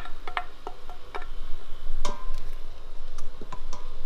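Irregular light clicks and clinks of a jar and spoon against the stainless steel inner pot of an electric pressure cooker, over the faint bubbling of the liquid just poured in. About two seconds in, one clink rings out briefly.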